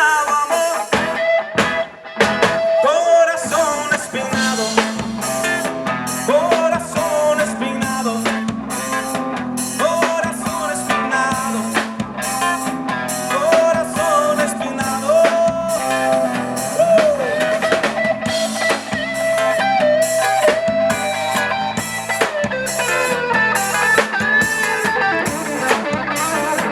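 Music: an instrumental passage with a steady drum-kit beat, bass and guitar.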